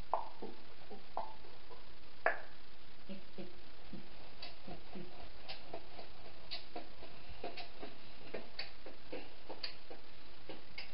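Short sharp clicks in a steady rhythm, about one a second, with softer ticks between them, over a steady hiss.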